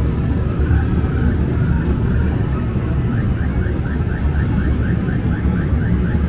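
Steady low rumble of a busy arcade. From about halfway there is a fast run of short electronic chirps, about four a second, from the crane game as its claw lowers.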